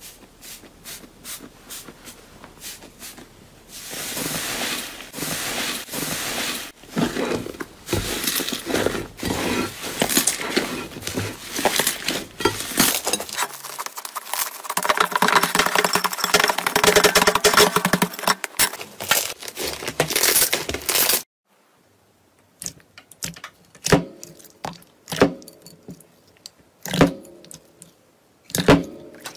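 Hands pressing, squeezing and stretching slime, giving a dense run of clicking and popping that cuts off suddenly about two thirds of the way through. Sparser single pops follow as another slime is pressed in a bowl.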